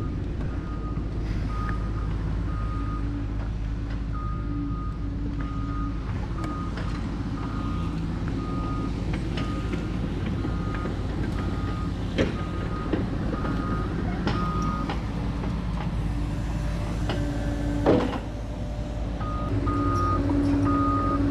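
Heavy machine's backup alarm beeping steadily over its running engine, the beeping dropping out for a while mid-way and resuming near the end. A few knocks, and one loud thud a little before the beeping resumes.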